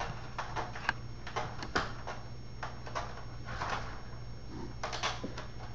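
A cat's claws catching and scraping on a sliding screen door's mesh as it leaps and climbs, the screen door rattling in its frame: a run of irregular scratches and clatters. A steady low hum lies underneath.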